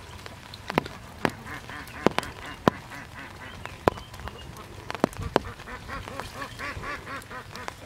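Ducks quacking in two quick runs, about a second and a half in and again near the end. Scattered sharp clicks and drips, the loudest sounds, come between and over the calls.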